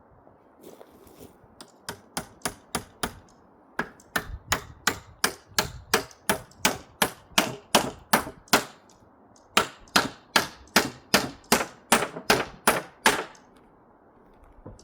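Hammer driving a nail into wood: a few light taps to start it, then steady hard blows about three a second, with a brief pause partway through.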